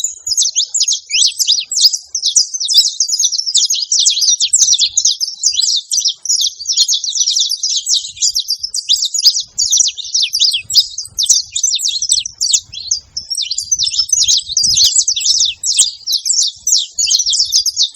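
Saffron finches chirping: a dense, unbroken stream of quick, high, overlapping chirps.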